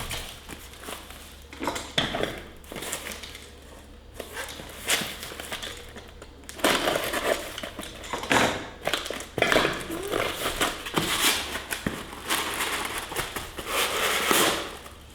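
Rustling and crinkling of packing material as plates are unpacked from a box, in irregular bursts.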